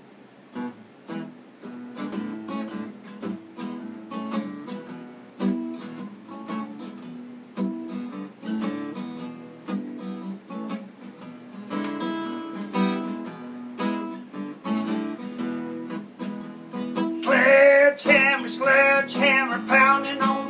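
Steel-string acoustic guitar playing a blues rhythm of strummed and picked chords. About three seconds before the end a louder sung melody line comes in over it.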